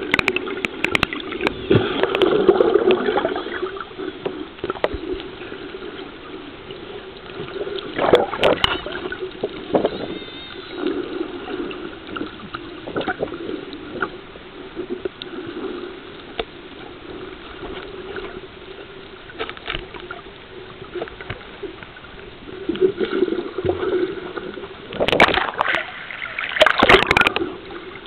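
Muffled water noise picked up by a camera held underwater: continuous sloshing and gurgling, with a few louder splashes or knocks about eight seconds in and twice near the end.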